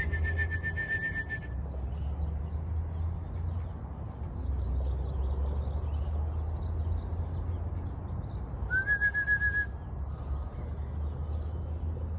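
Two short, high whistled bird calls with a fast trill, about a second long each, one at the start and one about nine seconds in, over a steady low rumble.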